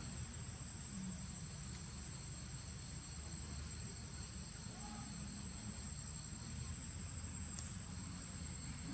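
Steady outdoor ambience: a continuous high-pitched insect drone over a low, even rumble.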